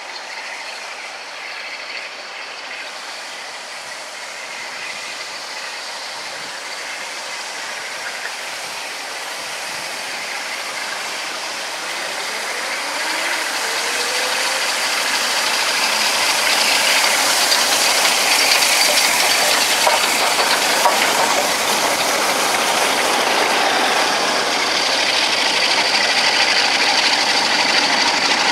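LMS Royal Scot class steam locomotive hauling a train of coaches, growing steadily louder as it approaches and passes, then the coaches rolling by on the rails.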